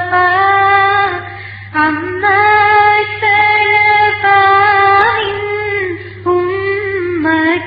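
A high voice singing a slow melody in long held notes, phrase after phrase with short pauses between them, over a steady low hum.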